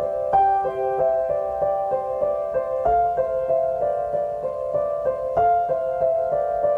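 Background music: a gentle piano pattern of notes repeating evenly, a few notes a second.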